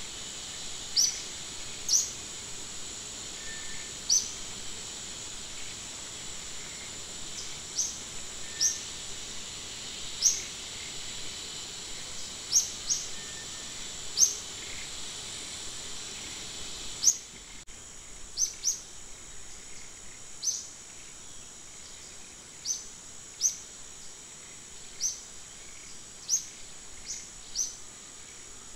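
Steady high insect hum in forest, with short sharp bird chirps repeating every second or two. The insect hum weakens about two-thirds of the way through while the chirps go on.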